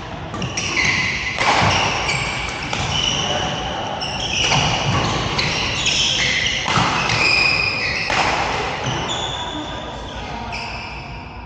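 Badminton rally: rackets strike the shuttlecock about four times, a couple of seconds apart, with short high squeaks of court shoes on the floor between the hits.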